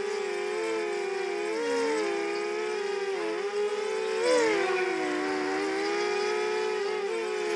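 Racing quadcopter's electric motors and propellers whining in flight, the pitch rising and falling as the throttle changes, with a brief louder surge about four seconds in.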